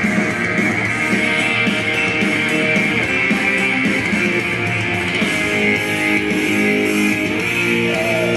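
Guitar-based song with strumming, played through the loudspeaker that drives a propane Rubens' tube.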